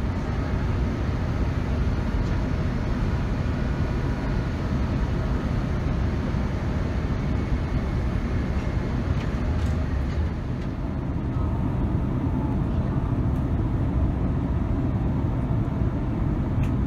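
Steady in-flight cabin noise of a Boeing 787-9 descending on approach: a low rumble of airflow and the Rolls-Royce Trent 1000 engines, heard from inside the cabin. Faint steady whining tones sit over the rumble in the first half.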